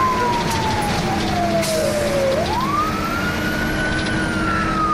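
Fire engine's siren, heard from inside the cab on an emergency run: a slow falling wail that sweeps quickly back up about two seconds in and starts falling again near the end, over the truck's engine running underneath.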